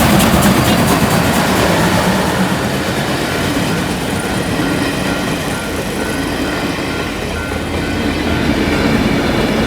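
A real train running past on the rails: the steady rumble and rattle of coaches, with wheels clacking over the rail joints. From about three seconds in, a faint high ding repeats at an even rhythm.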